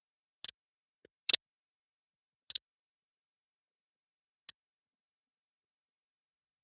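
Four short, sharp clicks spread over several seconds, with silence between them, from hands and tools working on a laptop keyboard during liquid-spill cleaning.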